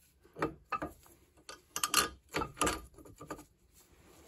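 Irregular metallic clicks and knocks, about eight to ten in all and loudest around two seconds in, as the lower caliper-bracket bolt and bracket are worked into place behind a Volvo S80's front brake rotor.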